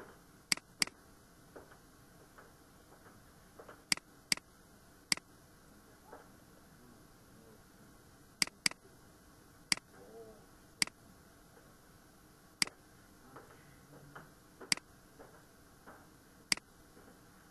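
Computer mouse buttons clicking: about a dozen sharp clicks at irregular intervals, several in quick pairs.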